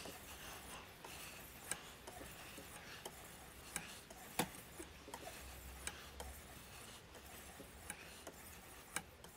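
Faint rasp of a 1,000-grit sharpening stone on a TSPROF guided sharpener's arm being stroked along a clamped knife blade, with a few light sharp clicks.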